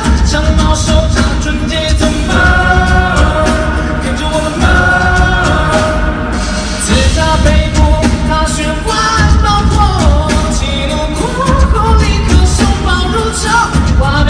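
Live concert recording of a pop-rock song: a male lead vocal sings over a full band with heavy bass and drums.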